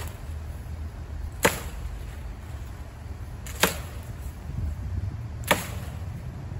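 Machete chopping into palm fronds: three sharp strikes about two seconds apart, over a steady low rumble.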